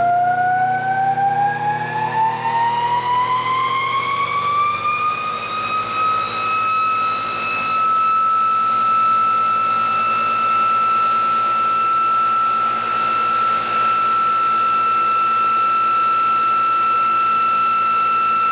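Electric EV drive motor and rotor of a bench test rig spinning up: a high whine rises steadily in pitch for about six seconds, then levels off into a steady whine as the system reaches rotational equilibrium.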